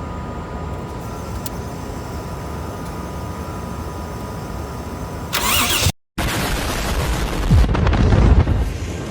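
Toyota 1JZ-GTE twin-turbo straight-six in a BMW E30 firing up about five seconds in and running loudly, revved near the end. It starts now that a faulty non-genuine crank sensor has been replaced with a known working one.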